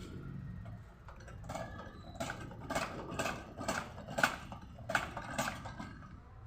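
A run of about a dozen sharp metallic clinks and knocks, irregular at roughly two a second, from about a second and a half in until near the end, over a low steady rumble.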